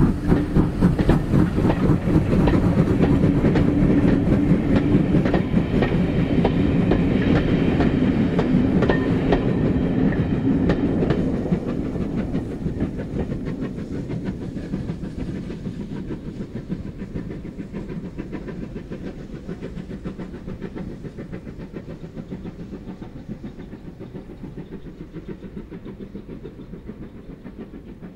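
Two GWR tank steam locomotives, a 4575 Class prairie and pannier tank No. 9466, hauling maroon Mk2 coaches past. A rhythmic beat of exhaust and wheel clatter is loud at first, then fades steadily from about halfway through as the train draws away.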